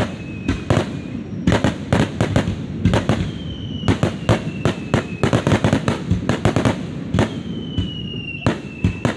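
Aerial fireworks going off in quick volleys of sharp bangs over a continuous low rumble. Two long whistles, each falling slightly in pitch, sound through the bangs, one about three seconds in and one near the end.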